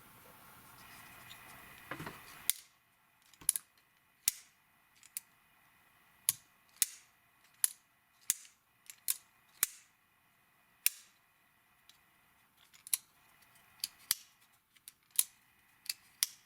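Schrade Divergent folding pocket knife being opened and closed over and over. A string of sharp metallic clicks comes from the blade swinging on its ball-bearing pivot and snapping against the axis-style pivot lock, starting a couple of seconds in and repeating about every half second.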